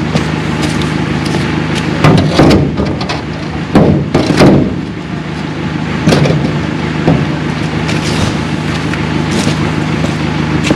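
A vehicle engine idling steadily, with several heavy clunks and clatters about two, four and six seconds in.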